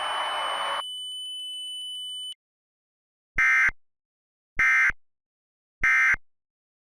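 A short hiss and a steady high tone cut off within the first two seconds. After a pause come three identical short buzzy bursts of EAS digital data tones, about a second apart: the SAME end-of-message signal that closes an emergency alert.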